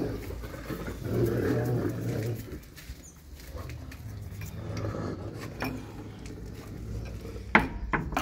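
Rottweiler growling low, loudest a second or two in and again briefly around the middle. Near the end come two sharp knocks from a wooden gate.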